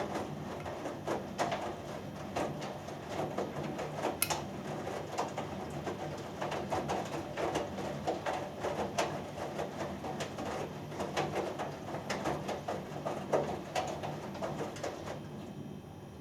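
Hoover Dynamic Next washing machine in its main wash: the drum turning, laundry and water sloshing, with many small knocks and clicks over the motor's steady hum. The turning stops about a second before the end.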